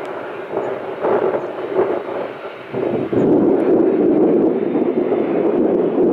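Jet engines of a taxiing Boeing 737-800 (CFM56-7 turbofans) at taxi power, a steady rushing noise that grows louder and steadier about three seconds in.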